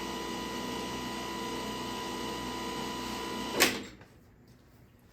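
Craftsman V60 cordless electric lawnmower motor running with the blade removed: a steady, even hum without the grinding racket. About three and a half seconds in, a sharp click comes as it is shut off.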